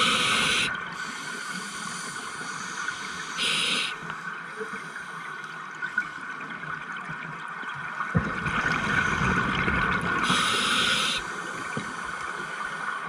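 Scuba regulator breathing recorded underwater: three short hissing bursts of exhaled bubbles, at the start, about three and a half seconds in and about ten seconds in, over a steady high hum, with a low rumble of water movement in the later half.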